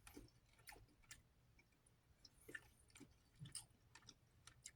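Faint chewing with the mouth close to the microphone: irregular soft wet clicks and smacks, about a dozen over a few seconds.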